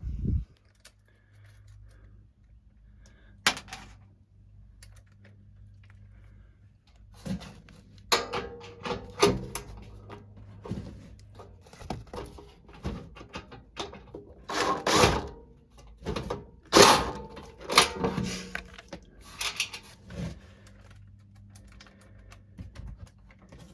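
Irregular knocks, clanks and rattles of tools against sheet metal as an air handler's blower is fitted back in, scattered at first and busiest from about 7 to 20 seconds in, over a faint steady low hum.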